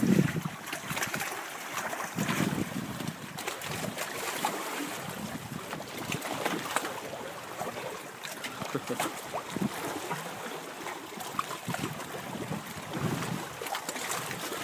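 Wind buffeting the microphone in low rumbling gusts at the start, about two and a half seconds in and near the end, over a steady hiss of wind and sea, with a few light knocks.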